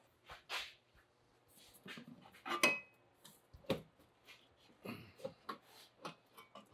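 Scattered light knocks, clinks and scrapes of the Soul Performance valved exhaust being handled and shifted, as the X-pipe is worked up above a brace at the back of the transmission. The loudest knock comes about two and a half seconds in.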